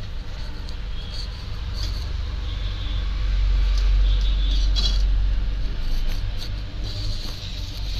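A golgappa puri frying in hot oil in a kadhai, with a slotted spoon pressing it and clicking against the pan. Under it runs a low rumble that swells to its loudest in the middle and then eases.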